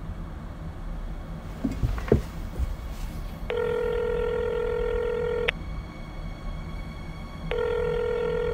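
Telephone ringback tone of an outgoing call: a steady buzzing tone that sounds twice, about two seconds each with a two-second pause, after a few handling knocks and clicks about two seconds in.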